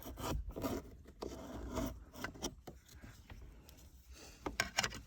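Irregular scraping and rubbing on plastic interior trim as years of built-up dirt and dust are wiped off, with a quick run of short scrapes near the end.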